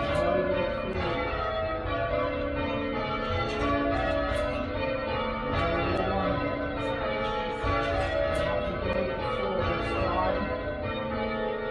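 A ring of church tower bells rung full-circle in change ringing, the bells struck one after another in a steady stream with their tones overlapping.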